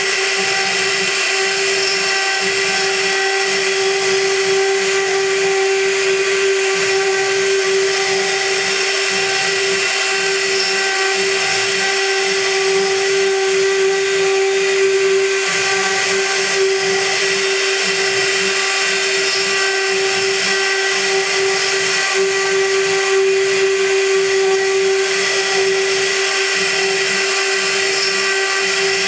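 High-frequency spindle of a CNC gantry milling machine running and cutting aluminium: a steady whine with several higher overtones over a hiss of cutting noise, unbroken throughout.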